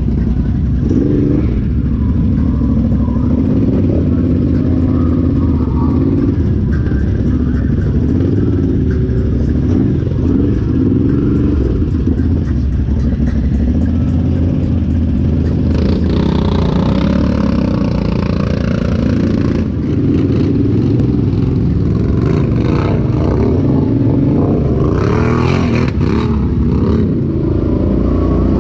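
Off-road vehicle engine, an ATV or side-by-side, running hard while riding a trail. The throttle rises and falls, with rattling from the machine, and there are louder revving stretches about halfway through and again near the end.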